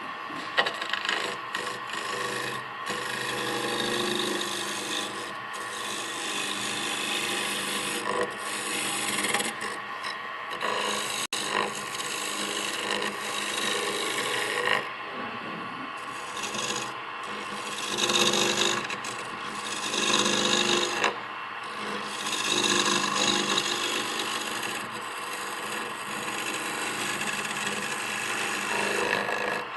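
A small wood lathe is running while a turning tool cuts the end of a wooden sphere down to round. The scraping of the cut swells and eases in repeated passes over a faint steady motor hum.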